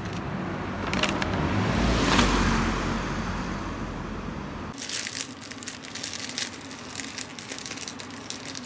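Street noise with a low rumble that swells and fades around two seconds in, like a car going by. After a sudden cut, a thin plastic bread bag crinkles and crackles as hands untie and open it around a loaf of shokupan.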